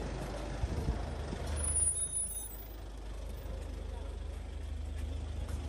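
Street traffic with a heavy vehicle's engine running low and steady, and a short high hiss about two seconds in.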